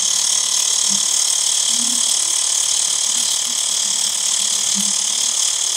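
Xiaomi Mi Portable Electric Air Compressor running steadily, a hard, buzzing drone as it pumps up a motorcycle tyre.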